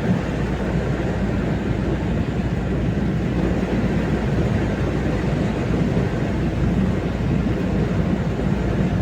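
Khandadhar waterfall: a steady, dense rumble of falling water, unbroken throughout.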